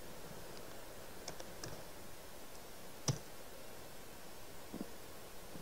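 A few sparse clicks of computer keyboard keys over faint background hiss, with one sharper, louder click about three seconds in.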